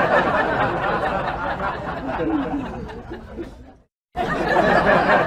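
People chuckling and chattering, a dense murmur of voices and laughter that cuts out for a moment about four seconds in, then resumes.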